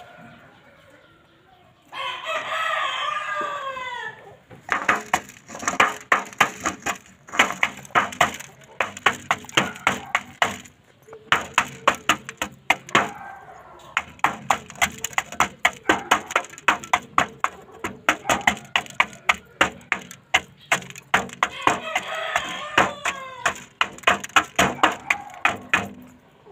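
Gamecock pecking rice from a metal pan: a fast, uneven run of sharp taps several times a second. A rooster crows twice, once about two seconds in and again near the end.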